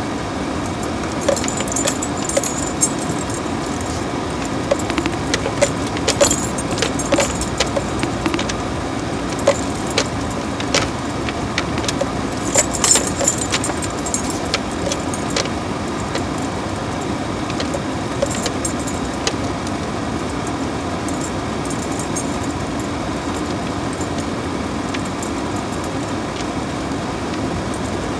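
Inside a pickup's cab driving slowly over a rough dirt trail: steady low road and engine rumble, with frequent small clinks and rattles from loose things in the cab jolting over bumps, busiest in the first two-thirds and thinning out later.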